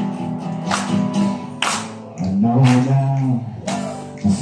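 Classical acoustic guitar strummed in a steady rhythm, about one stroke a second, accompanying a man's singing voice. He holds a sustained note about halfway through and again near the end.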